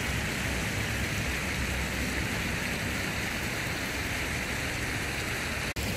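Steady rushing noise with no distinct events, which cuts out for an instant near the end.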